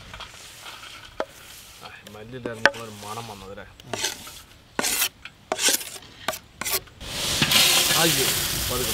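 Wooden chopping boards knocking and scraping on a steel plate in a few sharp separate knocks. About seven seconds in, a loud, dense crackling rustle starts as hands stir a big tub of crushed Lay's potato chips.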